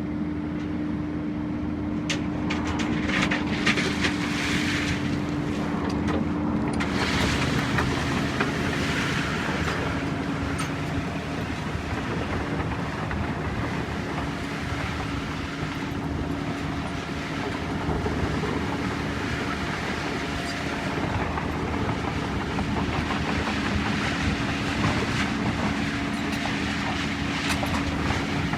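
Small construction machine's engine running steadily under work, with clanks and scraping noise from the machine at work in the first few seconds and now and then after.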